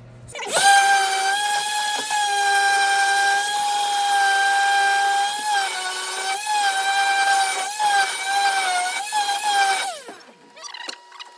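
High-speed handheld power tool motor spinning up about half a second in and running with a steady high whine, its pitch dipping briefly several times as it is pressed into the work, then spinning down near the end.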